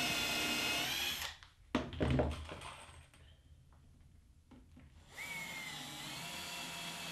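Power drill running briefly as a countersink bit bores a screw hole into the plywood top, stopping after about a second, followed by a few light knocks. About five seconds in the drill starts again, driving a screw home into the countersunk hole, its whine dipping briefly as it takes the load.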